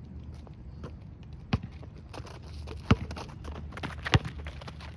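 Basketball bouncing on the court, three sharp thuds about a second and a half apart, with scuffing footsteps and small ticks between them.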